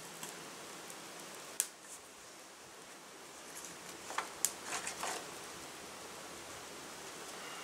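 Tinder and thin twigs crackling and rustling as a small fire of cardboard, birch bark and dry grass is coaxed alight by hand, with a sharp snap about a second and a half in and a quick run of crackles near the middle, over a steady faint hiss.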